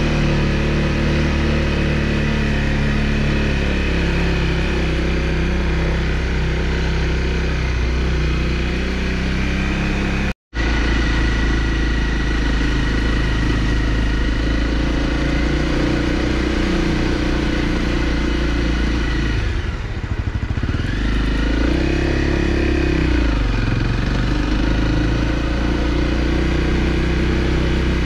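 Honda CRF250L's single-cylinder four-stroke engine running steadily under way on a dirt track. The sound drops out for an instant about ten seconds in, and about twenty seconds in the engine note falls and rises again.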